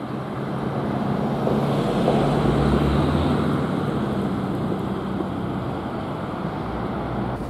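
Street traffic: cars and pickup trucks driving past, a steady rush of engines and tyres that swells about two to three seconds in as a vehicle passes close.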